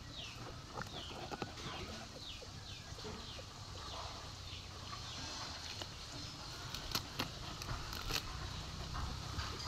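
Faint scrapes and knocks from a dog digging at a rat hole in loose soil, with a few sharper knocks in the second half. Behind it a bird calls a quick run of short falling chirps, a couple a second, that stops about two-thirds of the way through.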